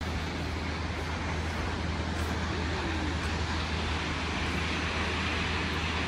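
Kegon Falls, a tall waterfall, rushing steadily: an even wash of falling-water noise with a deep rumble underneath.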